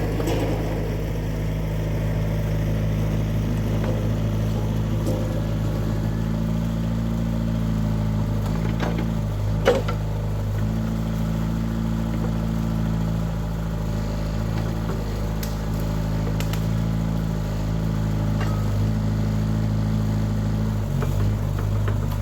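Mini excavator engine running steadily, its note dipping briefly twice. A single sharp knock about ten seconds in.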